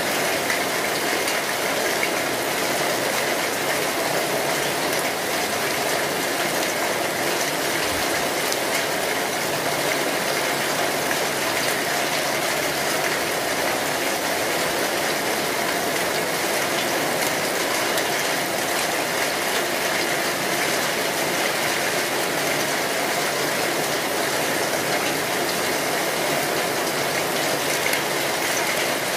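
Chopped onion and garlic frying in olive oil in a nonstick pan, stirred with a spatula: a steady sizzle.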